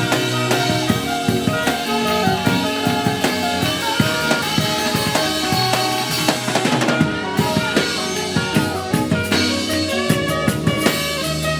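Live gospel band playing: a drum kit with bass drum and snare hits under sustained keyboard and bass notes.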